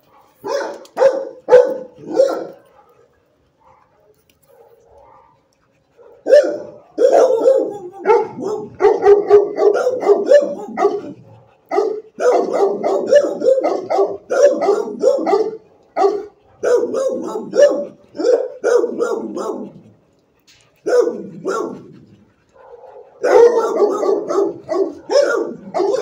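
Dogs barking in a shelter kennel block, in quick runs of short, overlapping barks. A short run about a second in is followed by a pause of a few seconds, then dense barking with brief gaps.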